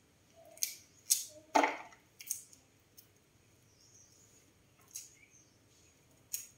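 Corn kernels being pried off a cob by hand, making several short, sharp cracking snaps at irregular intervals. The loudest comes about one and a half seconds in.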